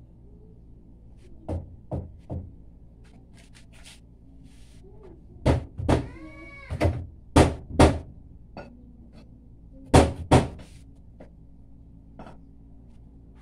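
Hammer blows on the wooden formwork for a concrete post, coming in short groups of two or three sharp knocks. A cat meows once, rising and falling in pitch, about six seconds in.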